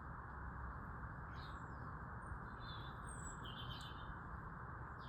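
Starlings chattering: a few faint whistles and rasping calls about a second in and again through the middle, over a steady background hiss.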